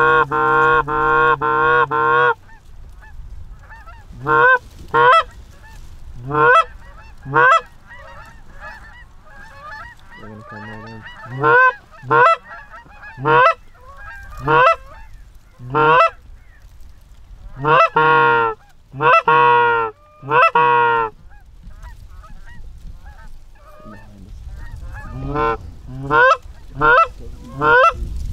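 Geese honking: a rapid run of honks at the start, then loud single and paired honks with a cluster of longer, drawn-out ones midway, while a flock answers faintly between them.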